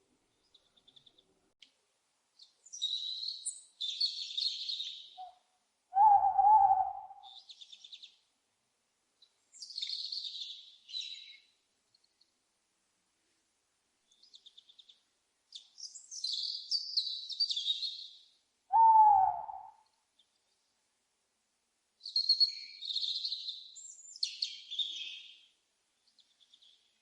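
Birds calling in separate bursts: high, twittering chirps repeat every few seconds. Two short, lower owl calls come about 6 seconds and 19 seconds in, and the second slides slightly down in pitch.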